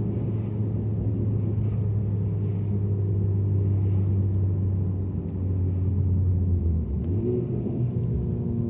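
Honda Civic Type R FK8's turbocharged 2.0-litre four-cylinder engine and exhaust, heard from inside the cabin while cruising, a steady low drone. About seven seconds in the pitch dips and comes back up briefly, a short change in revs.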